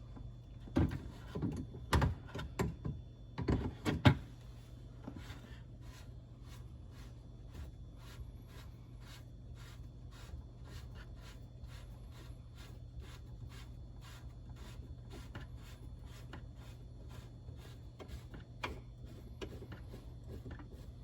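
Knocks and clunks of sink drain plumbing being handled as the P-trap under a garbage disposal is worked loose, loudest in the first few seconds. Then a steady low hum with faint clicking at an even pace, about two or three clicks a second.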